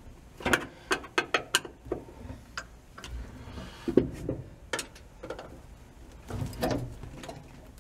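Irregular sharp clicks and knocks as a screwdriver works against a 1949 Chevy truck's parking brake lever and its floor retainer plate, with a quick run of clicks near the start and scattered ones after.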